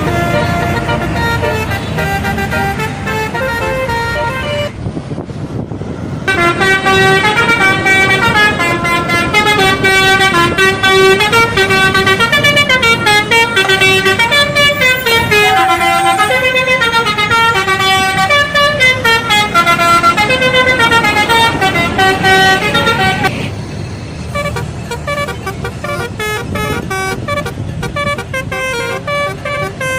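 Bus telolet horn: several air-horn tones stepping up and down together in a melody, loudest in a long run from about six seconds in until about twenty-three seconds in, with a bus engine and traffic running underneath.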